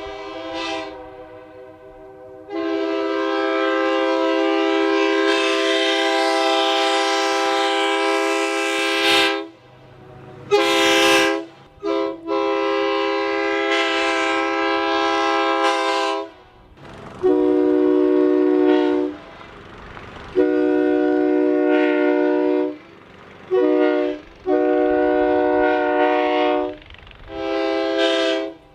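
Train horn sounding a steady chord of several tones in a series of blasts: one long blast of about seven seconds, then shorter blasts of one to four seconds separated by brief gaps.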